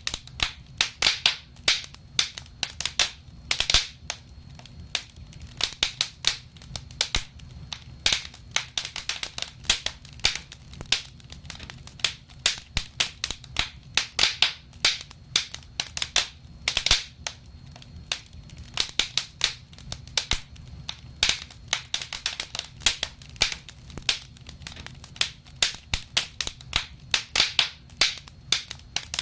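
Wood fire in a fireplace crackling, with irregular sharp pops, some in quick clusters, over a low steady rumble.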